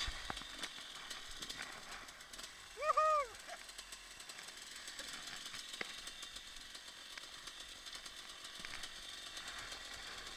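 Motorcycle engine silent: only faint rustling and small clicks of handling in dry brush, with one brief call that rises and falls in pitch about three seconds in.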